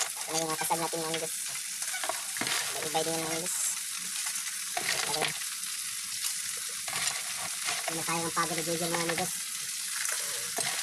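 Mud crabs sizzling in hot oil in a wok while a spatula stirs and turns them, with scraping and clicking against the pan. A few short, steady pitched tones, each under a second, come and go over the sizzle.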